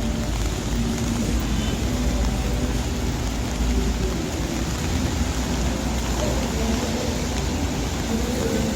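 Busy city street in the rain: a steady hiss of rain and wet tyres over a low traffic rumble, with faint voices of passers-by.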